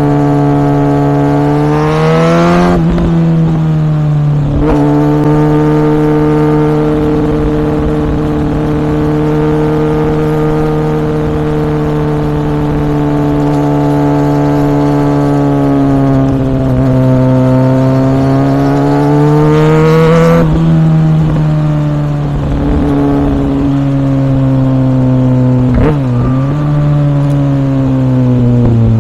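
2014 Kawasaki ZX-6R's 636 cc inline-four running through a Yoshimura R77 exhaust under way. The engine note climbs and drops sharply with upshifts about three and five seconds in, holds steady for a long stretch, climbs again to another shift near twenty seconds, and dips briefly near the end.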